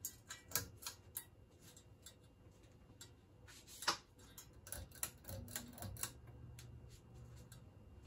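AirCool ceiling fan's pull-chain switch clicked to low speed, with a louder click about four seconds in among scattered light ticks. The motor then comes on with a steady low hum as the blades start turning.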